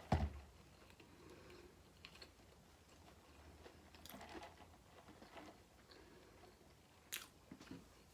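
A person chewing fast food close to the microphone, with soft mouth sounds and a few faint crisp clicks. There is a short low thump right at the start, and the sharpest click comes about seven seconds in.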